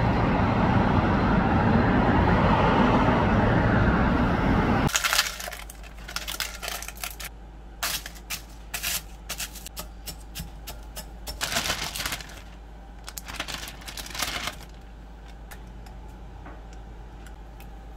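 A loud, even outdoor rush fills the first five seconds and cuts off suddenly. Then round butter crackers are crushed in a plastic bowl with a pestle, a run of sharp cracks and crunches that stops about fifteen seconds in.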